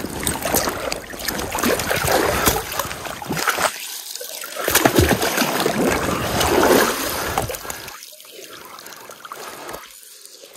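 Stream water splashing and dripping as a waterlogged log is hauled up out of it, uneven and full of short knocks, growing quieter about eight seconds in.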